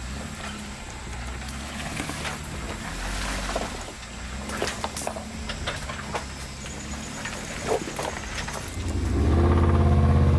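Off-road Jeep engine running low under a steady rumble, with scattered sharp clicks and knocks. About nine seconds in, the engine grows much louder.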